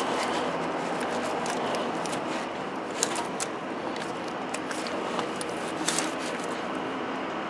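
A few small clicks and taps as the serpentine belt is worked onto the pulleys of the stopped engine, with a ratchet wrench on the belt tensioner. The clicks come about three seconds in and again around six seconds, over a steady background hiss.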